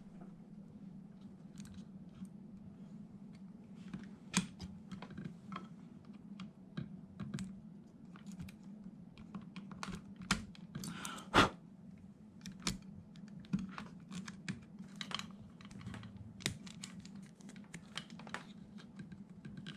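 Irregular small clicks and taps of multimeter probe tips being worked against a switch's terminals, with one sharper clack about eleven seconds in, over a faint steady low hum.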